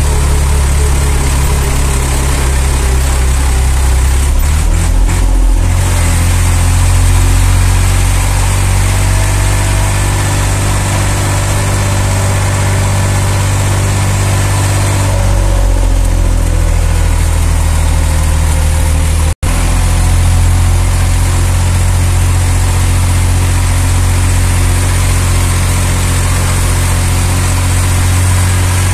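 Massey Ferguson 240's three-cylinder Perkins diesel running steadily at low revs, heard from the driver's seat, as the tractor pulls a load of about three tons. The engine note shifts about four seconds in and again about fifteen seconds in.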